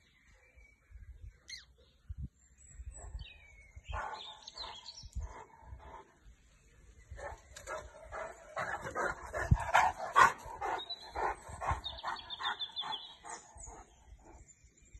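Large dog barking: a few barks about four seconds in, then a fast run of barks at about three to four a second through the middle, loudest around the middle, tailing off near the end.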